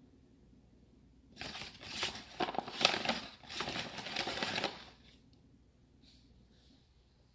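A paper bag of all-purpose flour rustling and crinkling as a spoon scoops flour out of it. The rustle starts a little over a second in and lasts about three and a half seconds, with a few sharper scrapes.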